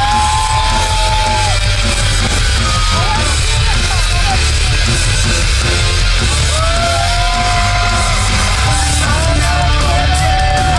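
Wrestling tag team's ring-entrance theme music played loud through an arena sound system, with heavy bass and yelled vocals.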